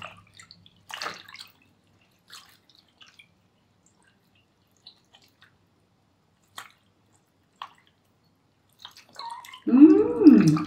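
Scattered water drips and light splashes as a wet kitten is washed in a sink. Near the end the kitten gives one loud meow that rises and then falls in pitch.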